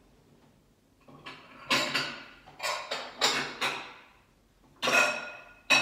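Rummaging through a kitchen cabinet: a run of clatters and scrapes as bowls and dishes are shifted, ending with a glass bowl clinking and ringing near the end.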